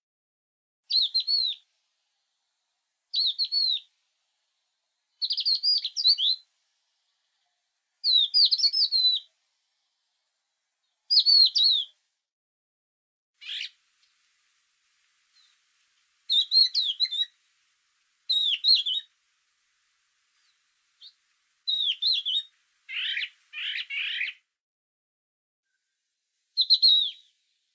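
A songbird singing short, quick chirping phrases, each about a second long and repeated every two to three seconds, with silence between. A lower-pitched, rougher pair of calls comes about two thirds of the way in.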